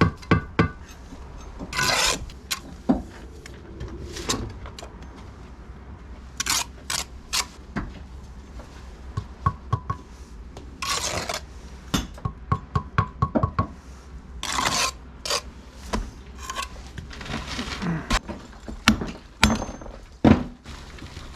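Hand tools working brick and mortar: irregular sharp metal clinks and knocks on brick, broken by several short scrapes.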